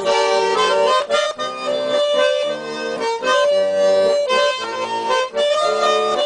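Garmon (Russian accordion) playing a melody with held chords over the song's backing, an instrumental break in a chanson song; the chords change about every half second.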